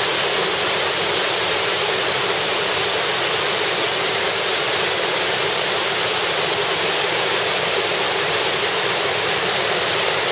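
Steady, loud rush of a roughly 13-metre waterfall pouring over its ledge at high water.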